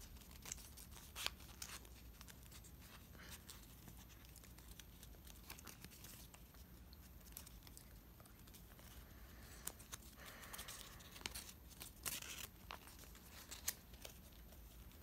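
Faint rustling and crinkling of a sheet of paper being folded and creased by hand, in scattered light ticks, a little busier after about ten seconds in.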